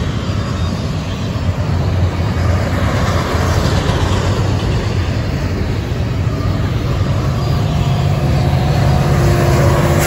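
Union Pacific double-stack intermodal freight train passing at speed: a steady rush of wheels on rail. Near the end, the drone of a mid-train diesel locomotive comes in, with a steady hum and tone.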